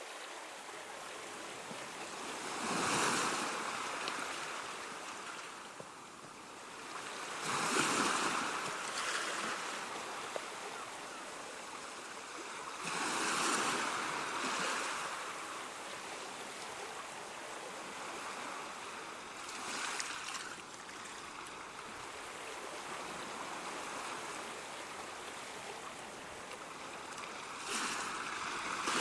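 Ocean waves breaking on the shore over a steady wash of surf, with a wave cresting about every five to six seconds.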